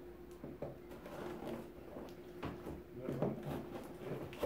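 Knife slicing and sawing through the tape and wrapping of a parcel: quiet, irregular scraping and scratching strokes.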